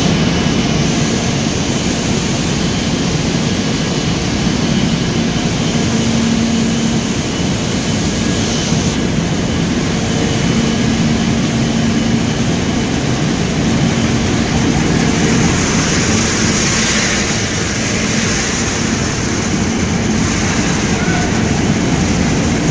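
Coffee bean processing machinery running: a loud, steady industrial din with a constant low hum.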